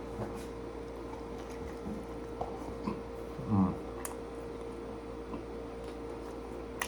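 Close-up eating sounds of chewing a sandwich: soft, wet mouth clicks and squelches, with a short voiced murmur about three and a half seconds in. A faint steady hum sits under it all.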